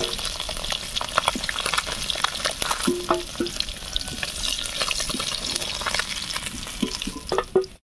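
Koi fish frying in hot mustard oil in an iron kadai, the oil sizzling steadily with a constant crackle of small pops. A metal spatula scrapes and clinks against the pan as the fish are lifted out. The sound cuts off abruptly just before the end.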